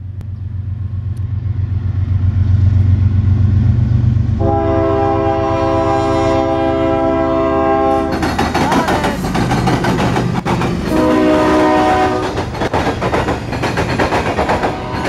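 CSX diesel locomotive approaching with its engine rumble building, then sounding its multi-note air horn in a long blast about four seconds in and a shorter one around eleven seconds. From about eight seconds the steel wheels of the locomotive and coil cars clatter over the rails as the train passes.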